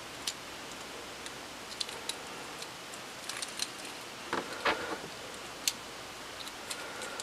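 Small plastic clicks and snaps of Make-It Blocks toy bricks being handled as wheels are pressed onto a brick-built tank, a few scattered ticks with a louder cluster about four and a half seconds in.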